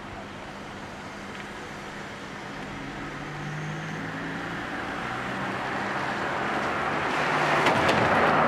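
A car drives up and passes close, its engine and tyre noise growing steadily louder. Near the end there are a few light knocks as it rolls over a speed bump.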